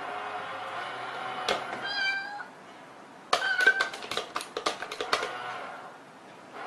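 Meowing, with a short higher meow about two seconds in, then from about three seconds in a quick run of sharp mechanical clicks from a battery-powered kitty coin bank as its lid flips open.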